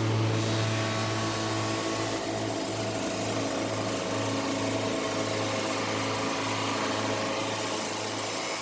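Double-head automatic notching machine running steadily, a constant low motor hum with fainter steady tones above it and no distinct cutting strikes.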